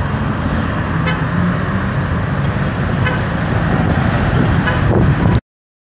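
Steady road traffic noise of passing motor vehicles, with a few brief faint tones about one, three and five seconds in. The sound cuts out abruptly to silence about five and a half seconds in.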